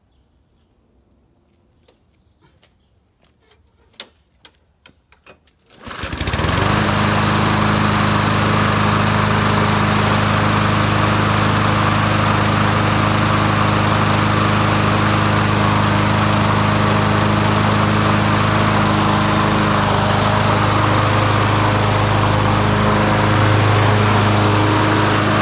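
Primer bulb on a 2007 Craftsman 21-inch self-propelled mower pressed in a quick string of about eight clicks, then the starter cord is pulled and the 6.25-horsepower engine catches at once and runs steadily. A cold start at about freezing, primed eight times.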